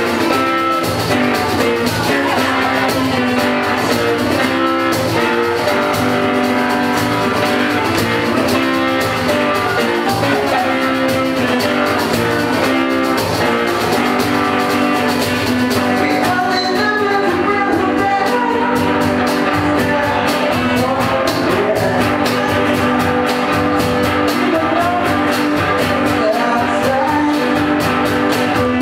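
Live band playing a song with guitar, drum kit and singing, at a steady loud level.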